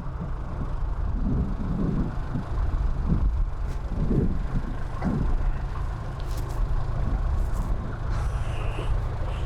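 An engine running steadily at a low, even drone, with a brief higher whine near the end.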